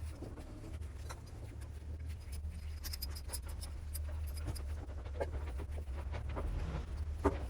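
Scattered light clicks and taps of hand work on engine parts, over a steady low hum; one sharper tap near the end.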